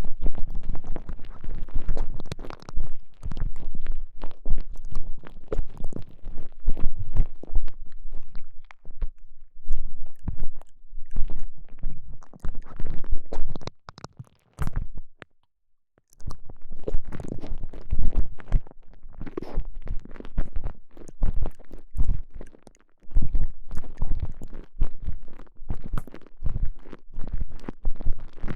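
Squishing and crackling of a soft elastomer TENGA Egg sleeve being squeezed and worked around a microphone inside it. The sound is a dense, irregular run of crackles and low thumps, with a brief drop to silence about halfway through.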